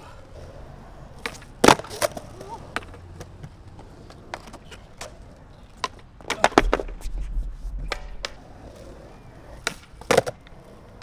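Skateboards doing flip tricks on flat concrete: sharp wooden clacks of the tail popping and the deck and wheels slapping down on landing. A cluster of clacks comes about six seconds in, followed by about a second of wheels rolling over the concrete, and more clacks come near the end.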